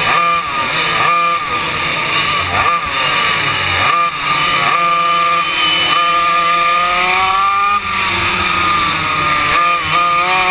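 Yamaha KT100 two-stroke racing kart engines at full race pace, the camera kart's own engine loudest, dropping off and picking up again several times through the corners. In the middle the pitch climbs steadily for a few seconds on a straight, then falls away suddenly when the driver lifts.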